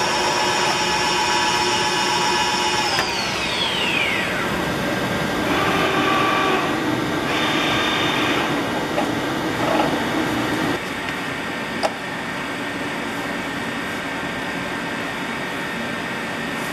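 DIXI milling-drilling machine running with a steady, high whine that falls in pitch and dies away about three seconds in as the spindle runs down. Uneven machine whirring follows for several seconds, then the level drops to a steady hiss broken by one sharp click.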